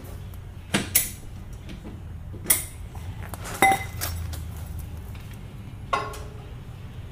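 A metal pipe being handled and knocked against a car's muffler: four sharp metallic clanks a second or so apart, the last two ringing briefly.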